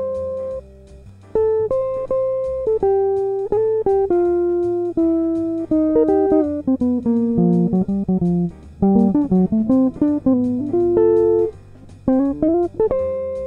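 Archtop hollow-body electric guitar playing quick single-note jazz lines, ending on a held note, over a low bass line and a steady faint tick.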